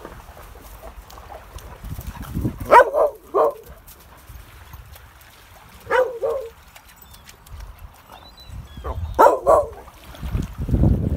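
A dog barking: three pairs of short barks a few seconds apart. Wind buffets the microphone near the end.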